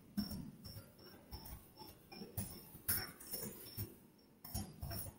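Computer keyboard keys being typed, a quick irregular run of soft clicks.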